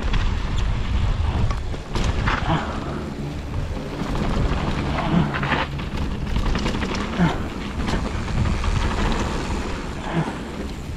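Mountain bike ridden fast down a dirt trail: heavy wind buffeting on an action camera's microphone, with tyres on dirt and scattered clattering knocks from the bike over rough ground.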